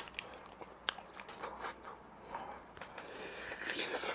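Close-up chewing of a crème brûlée doughnut with a hard-topped crust, with small crunches and wet mouth clicks. The chewing grows a little louder and hissier near the end.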